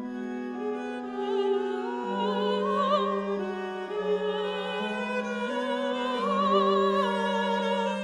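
Chamber music: a soprano sings long notes with wide vibrato over sustained low cello notes that step from pitch to pitch.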